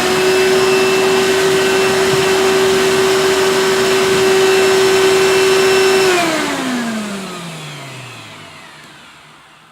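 Hoover Elite upright vacuum cleaner's motor running at full speed with a steady high whine over a rushing airflow, then switched off about six seconds in and winding down, its whine falling in pitch as it fades.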